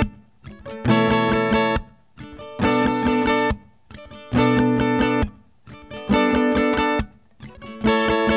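Acoustic guitar strummed in a repeating pattern: groups of quick chord strokes lasting about a second, each followed by a short break, five times over, with no singing yet.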